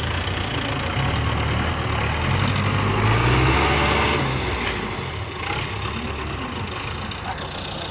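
Belarus tractor's diesel engine running under load as the tractor climbs a steep dirt slope, growing louder for a few seconds in the middle and then easing off.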